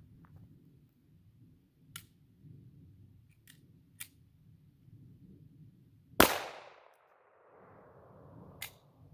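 A single .380 ACP pistol shot from a Glock 42, sharp and loud with a long echoing tail, about six seconds in. A few faint clicks come before and after it.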